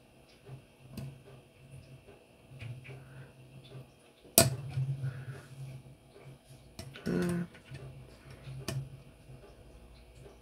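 Light metallic clicks and taps of a torque wrench's bit working the screws of a red-dot mount on a revolver, as the mount screws are tightened to 20–25 inch-pounds. One sharp click about four seconds in is the loudest, with a short cluster of knocks a few seconds later and another sharp click near the end.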